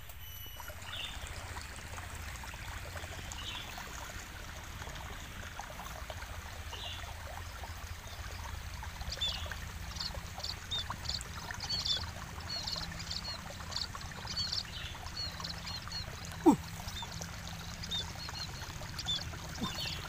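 River water flowing steadily, with small birds chirping in short, high notes from about halfway on. A single sharp click stands out near the end.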